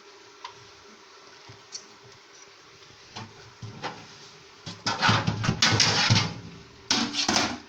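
Fridge drawers and shelves being handled, with a run of loud clattering knocks starting almost five seconds in and a shorter one near the end.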